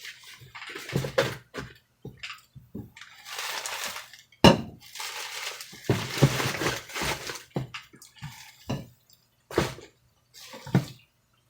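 A parcel being unwrapped by hand: packaging rustling and crinkling in uneven spells, with a few sharp clicks or snaps.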